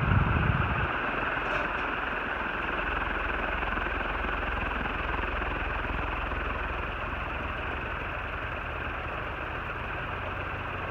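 36-inch Union industrial ceiling fan with curved blades running steadily at speed: a constant rush of air from the blades, with a louder low rumble in the first second.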